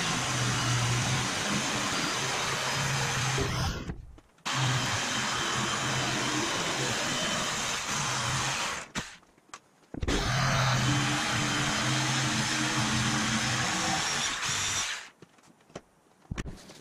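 Jigsaw cutting through an OSB sheet, running steadily in three stretches of about four to five seconds each, each stopping abruptly.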